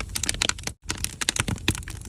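Firewood burning in the firebox of a traditional Korean ondol stove (agungi), crackling in quick, irregular snaps. The sound drops out briefly just under a second in.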